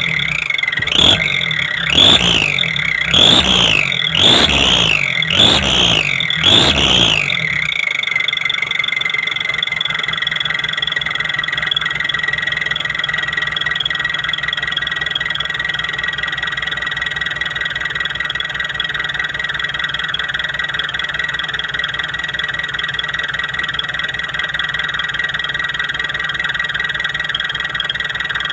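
Whistling exhaust pipe on a running engine: the whistle swoops up and down in pitch with about six quick throttle blips. From about eight seconds in it settles into a steady high whistle at idle.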